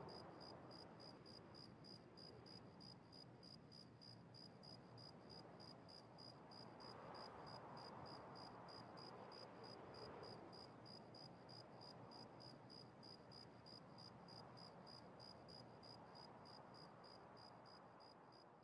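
Near silence: faint room hiss with a faint, steady high-pitched pulsing that repeats evenly several times a second.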